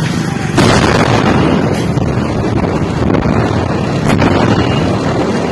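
Factory explosion: a sudden loud burst of noise about half a second in, carrying on as a steady rushing noise.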